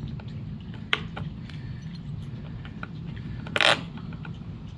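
A pocket multitool working at a plastic cable tie: small clicks and scrapes, a sharp click about a second in and a louder, short scraping rasp near the end, over a steady low rumble.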